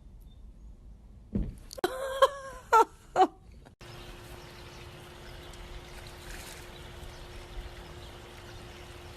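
Four or five short, pitched animal calls in quick succession, then a sudden cut to a steady hum with a light hiss.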